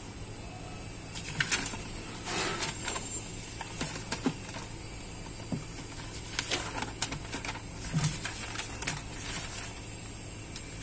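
Paper instruction manual being handled and its pages turned, rustling in several short spells, over a low steady hum.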